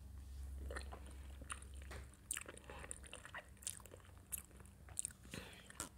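Close-miked chewing and small mouth clicks as a spoonful of gelatin dessert is eaten off a plastic spoon.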